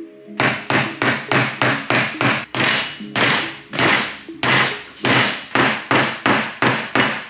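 A claw hammer strikes a steel block and an old bearing race, driving new wheel-bearing races into a front wheel hub. The metal-on-metal blows start about half a second in and go on steadily, about three or four a second, each with a short metallic ring.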